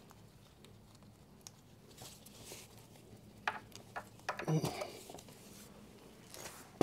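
Faint handling noises of hands working on motorcycle fairing parts: scattered light clicks and rustles, with a few sharper clicks about three and a half to four seconds in.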